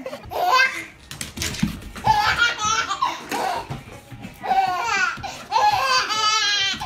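Baby laughing in several short bursts with brief pauses between them.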